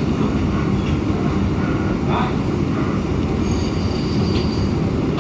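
A Bombardier R142 subway car in motion, heard from inside the car: the wheels and running gear give a steady rumble. About three and a half seconds in, a faint high wheel squeal joins it.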